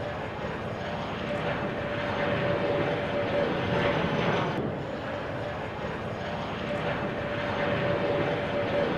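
Airbus A320neo airliner's turbofan engines running as the plane rolls along the runway: a steady rushing engine noise with a faint steady whine.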